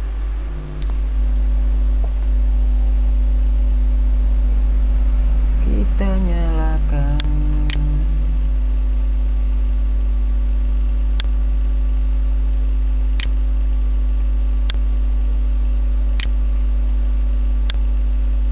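Loud steady electrical mains hum, with a few steady tones above it. A brief falling hum-like vocal sound comes about six seconds in, followed by sharp single clicks about every one and a half seconds.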